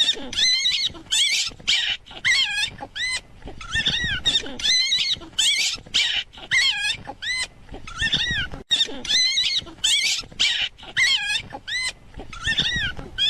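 A dog crying out over and over in high-pitched yelps, about two a second, each cry rising and then falling in pitch.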